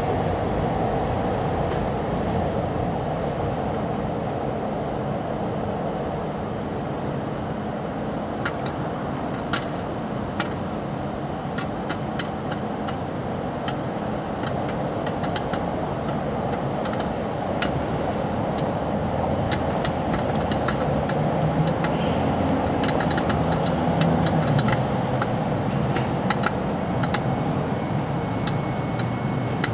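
Popcorn vending machine running with a steady blower and heater noise. Sharp popping clicks of kernels bursting begin about eight seconds in and come thicker in the second half.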